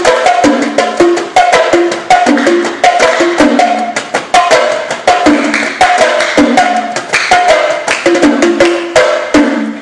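Background music: a fast percussion-driven track of dense drum and knocking strikes over a repeating melodic figure.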